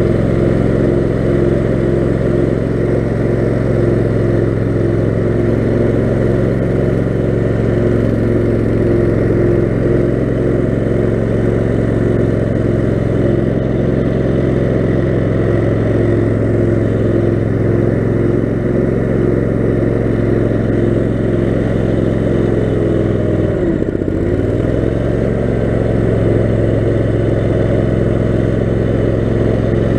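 Kohler 18 HP Command engine of a 6x4 off-road lawn mower running steadily. About three-quarters of the way in, its speed dips briefly and then picks back up.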